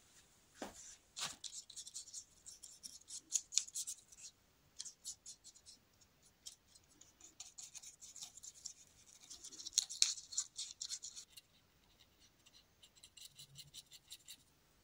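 Paintbrush bristles scratching and dabbing acrylic paint in many short, quick strokes that come in bursts, loudest about ten seconds in.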